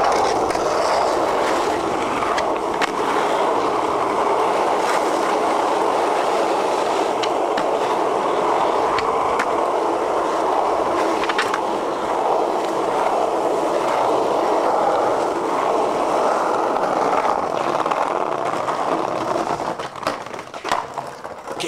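Skateboard wheels rolling over asphalt, a steady loud rumble with an occasional sharp click. Near the end the rolling breaks up into a few sharp clacks of the board striking the ground.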